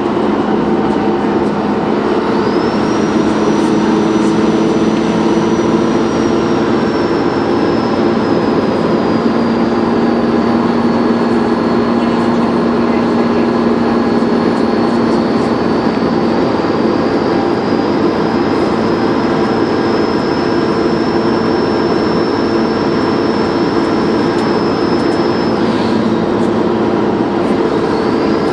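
Dennis Trident 2 double-decker bus's diesel engine running, with a high turbocharger whistle on top. The whistle comes in about two seconds in, sags slightly in pitch and climbs back, cuts off suddenly near the end, then starts again just before the end.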